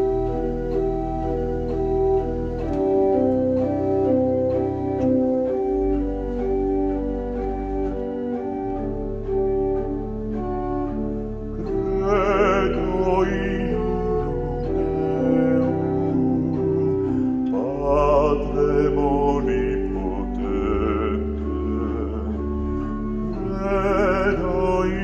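Pipe organ playing slow held chords over deep pedal notes. About twelve seconds in, a male solo voice joins and sings in phrases with a wide vibrato over the organ.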